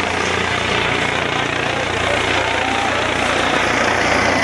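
Helicopter flying low overhead: steady rotor and turbine noise, growing slightly louder as it comes nearer, with a crowd's voices underneath.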